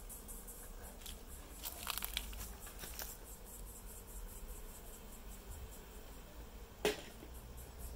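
Rustling puffs from a bee smoker's bellows being squeezed over an open hive, several close together about two seconds in, then a single sharp click near the end.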